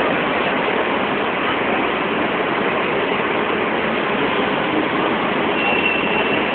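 Steady, even din of a crowded station hall, with no single voice or event standing out. A faint, brief high tone sounds near the end.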